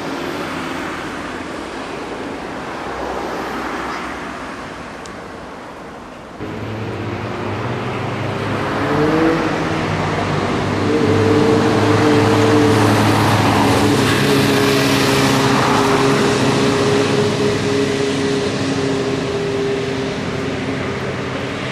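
Road traffic noise, then from about six seconds in a motor vehicle's engine running with a steady, several-toned hum that bends briefly in pitch a few seconds later.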